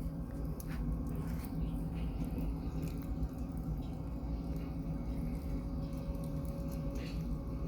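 Wood fire burning in a homemade downdraft (reverse-burning) stainless-steel fireplace: a steady low rumble with scattered small crackles and pops.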